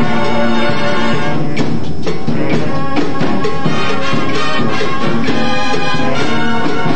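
A high school marching band playing a brass-led piece, trumpets and trombones over sustained full chords.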